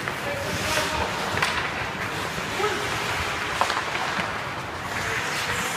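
Ice hockey play: skate blades scraping the ice as a steady hiss, with several sharp stick and puck clacks, and faint shouts from players.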